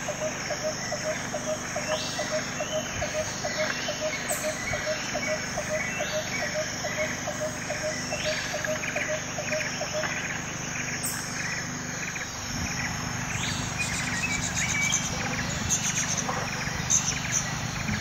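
Shallow stream of water running and splashing over rounded stones, with birds chirping over it. A call repeated about three times a second runs until about halfway through, and a little past the middle the water sound turns deeper and fuller.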